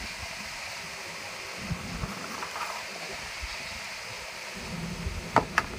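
Handling noise as a small aluminium-framed solar panel and its coiled cable are unpacked on cardboard: faint rustles, then two sharp knocks a fraction of a second apart near the end, over a steady hiss.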